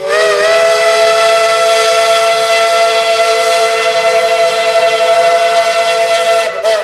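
Steam whistle of Tweetsie Railroad's narrow-gauge 4-6-0 locomotive No. 12, one long loud blast sounding a chord of several tones. Its pitch rises slightly as it opens and wavers briefly near the end.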